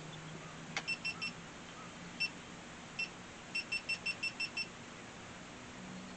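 Short, high electronic beeps from a small device. There are three quick beeps about a second in, two single beeps, then a fast run of seven, all over a faint steady low hum.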